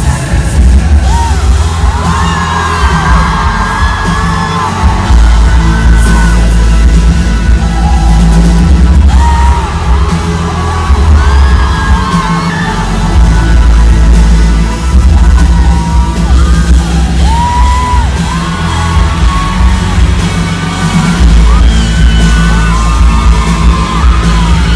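Live pop concert heard from within the audience: loud amplified music with heavy, pulsing bass and singing, with fans yelling and whooping over it.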